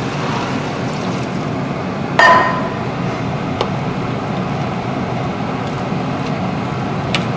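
Water poured from a glass jug into a steel pot of diced pumpkin and root vegetables. About two seconds in there is a single ringing clink of glass or metal, and then the vegetables are stirred with a spatula, with a couple of light taps against the pot.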